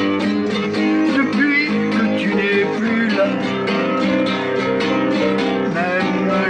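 Instrumental music with plucked acoustic guitar playing a quick, even run of notes over sustained tones.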